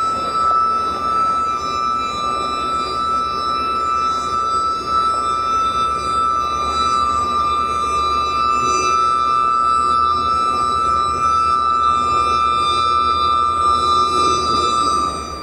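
Horn of an approaching CFR class 64 (060-DA) diesel locomotive held in one long, steady, high two-note blast that cuts off abruptly after about fifteen seconds, over the low rumble of the engine.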